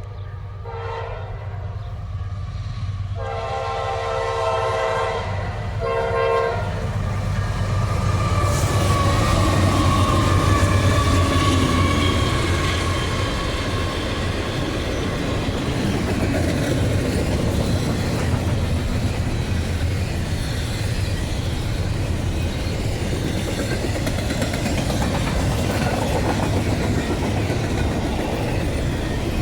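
Norfolk Southern freight train's locomotive horn sounding several blasts, the middle one long. Then the train passes at speed: a loud rush as the locomotives go by, with a tone that falls in pitch, followed by the steady rumble and clatter of the freight cars on the rails.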